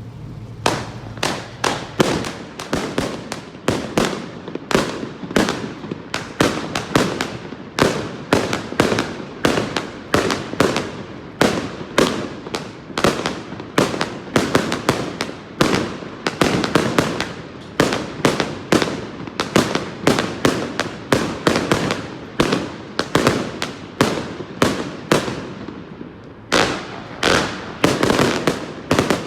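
A 60-shot firework salute cake firing its shots one after another, sharp bangs about two a second, each trailing off in a short echo.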